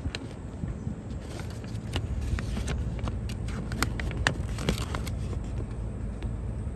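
Folded paper omikuji fortune slip being unfolded and smoothed flat by hand, crinkling and crackling in a run of quick sharp rustles over a steady low background rumble.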